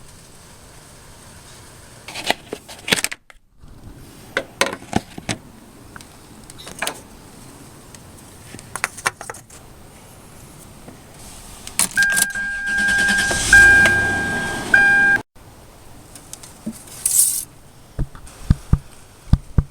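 Keys jangling and clicking, then a steady two-tone vehicle chime with short breaks over a swelling rush of noise for about three seconds, which cuts off abruptly. A brief hiss and a few more clicks follow.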